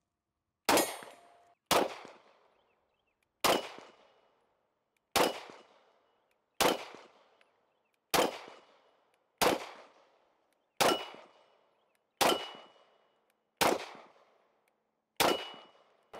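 Taurus GX4 XL 9mm pistol fired eleven times in slow, steady succession, about one shot every second and a half, emptying the eleven-round magazine. A faint ring of steel targets follows several of the shots.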